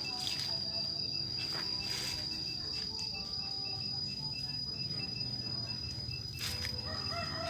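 Insects calling: a steady high-pitched drone with a second insect chirping about three times a second, over a low, steady rumble.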